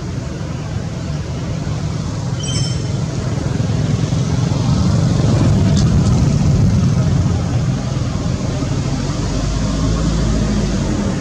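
Steady low outdoor rumble, growing louder about halfway through and then easing off, with a brief high chirp a couple of seconds in.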